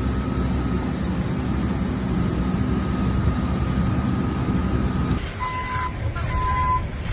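A steady low rumble of a vehicle engine running. After a change about five seconds in, a vehicle's reversing beeper sounds in evenly spaced beeps, a little more than one a second.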